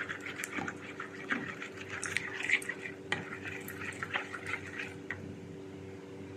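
Spoon stirring cabbage in a cooking pot, with irregular scrapes and taps against the pot that thin out near the end, over a steady low hum.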